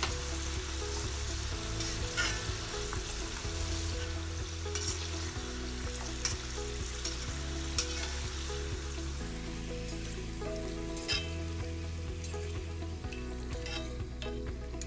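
Flour-coated chicken pieces deep-frying in hot oil in a steel wok, a steady sizzle as they brown, with scattered clinks of a metal slotted turner stirring against the wok.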